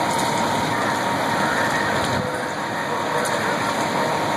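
Fire truck's diesel engine running steadily, with a steady whine over it.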